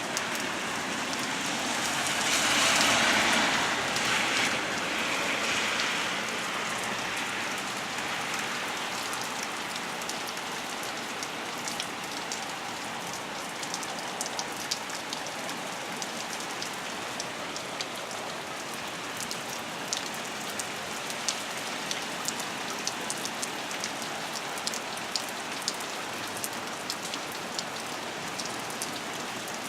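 Heavy rain falling steadily, with many sharp drop ticks throughout. A louder surge of wind-driven rain swells up about two seconds in and eases off by about six seconds.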